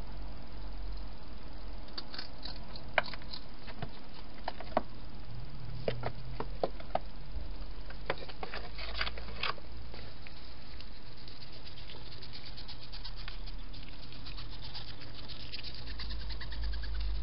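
Wild hedgehog eating from a feeding bowl: irregular sharp crunching clicks over a steady low hum. After that, a dense run of fine rustling ticks as the hedgehog comes right up to the camera.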